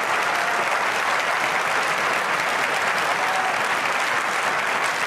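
Large auditorium audience applauding steadily.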